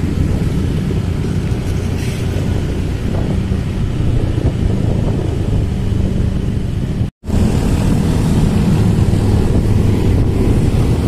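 Motorcycle riding along a road: steady engine and road rumble under wind buffeting the microphone. The sound cuts out completely for a split second about seven seconds in.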